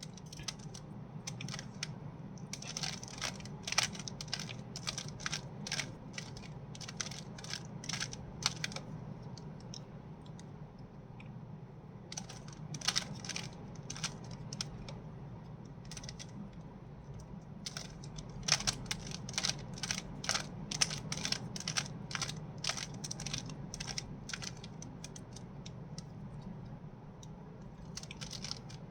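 Rubik's Cube being turned by hand: quick runs of plastic clicks as the layers are twisted, in bursts of several turns with short pauses between. A low steady hum runs underneath.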